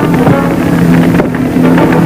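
Dramatic background music from an old film soundtrack, with held notes, over a steady engine-like rumble.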